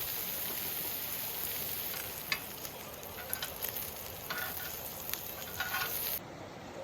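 Food sizzling in a pan on a camp burner, a steady hiss with a few light clicks of utensils. The hiss cuts off suddenly near the end.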